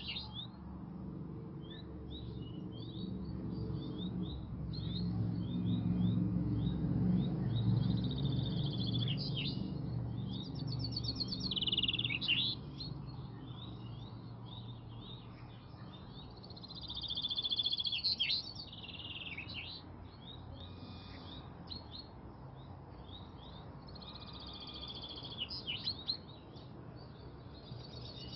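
Male common chaffinches singing: several full song phrases, each a falling trill with a flourish at the end, repeating every six to seven seconds among scattered twittering. A low hum runs underneath for about the first half.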